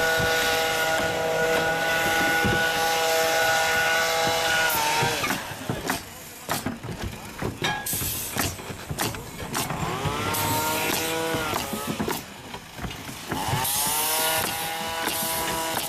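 A motor running with a steady whine. About five seconds in it winds down, and a run of sharp knocks follows. Then it spins up, winds down and spins up again, running steadily at the end.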